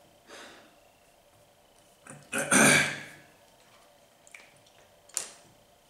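A man's breathing and throat noises as he reacts to the burn of a very hot pepper: a short breath near the start, a loud rough throat-clearing about two and a half seconds in, and a short sharp breath near the end.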